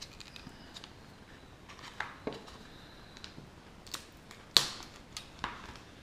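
Utility knife slicing open a plastic anti-static bag, with scattered faint clicks and crinkles of the plastic being cut and pulled apart; the sharpest click comes about three quarters of the way through.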